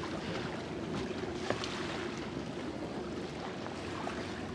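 Wind buffeting the microphone and water splashing along a catamaran's hull, over a steady low hum. A faint knock about one and a half seconds in.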